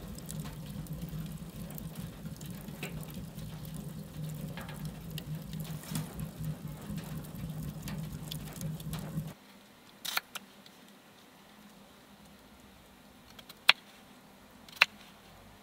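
Wood fire burning in a small tent stove, with soft crackles and pops over a low steady hum. About nine seconds in this cuts off to near quiet, broken by a few sharp taps from a hand tool being handled; the two louder taps come near the end.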